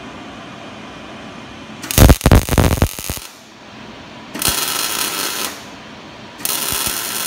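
Welding arc crackling in three short bursts, each about a second long, as tack welds go onto the U-joint bearing caps of a Dana 44 front axle shaft; the first burst is the loudest. A steady hiss runs between the bursts.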